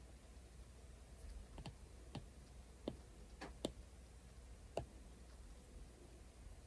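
Apple Pencil tip tapping on the iPad's glass screen: about six faint, sharp taps spread over a few seconds while a colour is picked.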